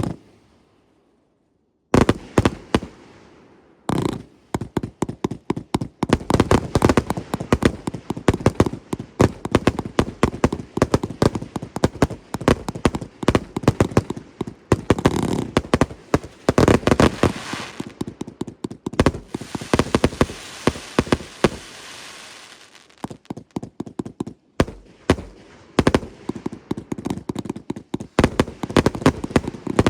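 Firework cakes firing in rapid succession: one bang, about two seconds of quiet, then a dense run of sharp shots and bursts, often several a second, with crackle and hiss between them. The shots thin out briefly near the end before picking up again.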